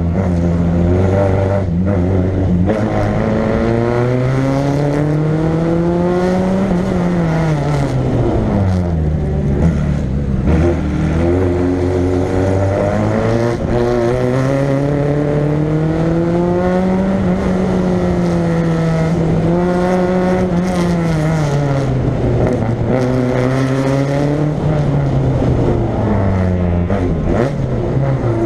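Peugeot 106 Maxi Kit Car's four-cylinder rally engine heard on board, revving up and falling back again and again as the car accelerates, shifts and slows through the course. Its pitch climbs in long sweeps and drops sharply at the shifts, with a lower stretch about a third of the way in.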